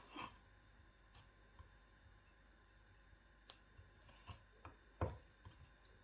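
Kitchen utensils being handled while baking: a scatter of light clicks and knocks, the loudest about five seconds in.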